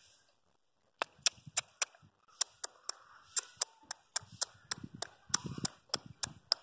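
A quick, irregular run of sharp clicks or snaps, starting about a second in and going on at roughly three to five a second.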